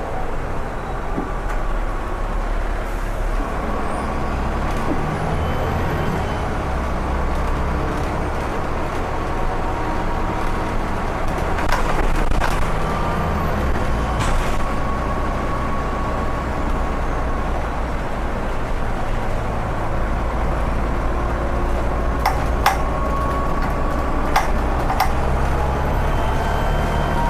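Volvo B7TL bus's diesel engine running under way, with a turbocharger whistle in thin tones that rise and fall. A few sharp clicks or knocks come in the second half.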